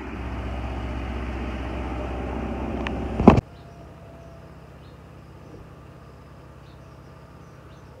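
Sandblasting noise: a loud, steady rushing hiss over a low machine hum, which ends with a sharp knock a little over three seconds in. After that a much quieter steady low hum continues.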